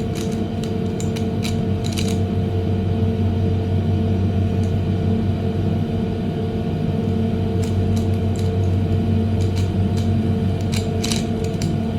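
Steady hum of an air conditioner, with scattered clicks and clacks of a Megaminx puzzle's plastic faces being turned, in small clusters near the start and about three-quarters of the way through.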